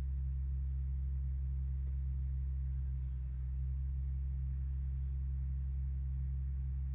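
Steady low electrical hum, an even, unchanging drone with no other sound over it.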